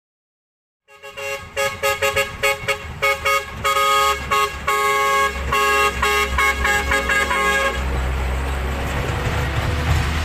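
A rapid series of short, tooting horn-like notes, then a steady rushing noise over a low rumble from about eight seconds in.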